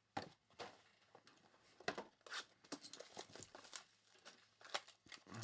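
Trading card packs being handled and opened: a faint, irregular run of short crinkles, rustles and small tearing sounds from the foil wrappers and cards.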